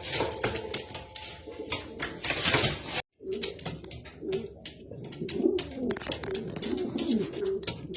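Domestic pigeons cooing, with many sharp clicks and rustles among them. The sound drops out briefly about three seconds in, and the cooing is steadiest after that.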